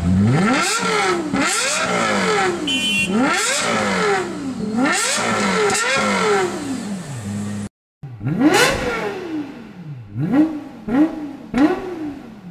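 Lexus LFA's 4.8-litre V10 free-revved at a standstill: several sharp rises and falls in pitch, each about a second long. After a cut near eight seconds in, a second LFA gives one big rev and then a run of short, rapid throttle blips.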